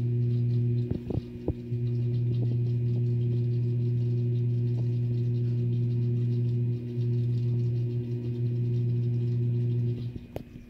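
Aquarium water-circulating pump giving a steady low hum with a faint higher tone above it, briefly broken about a second in and cutting out shortly before the end.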